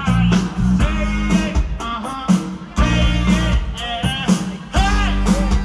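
Rock music: a singing voice over guitar, bass and drums with a steady beat.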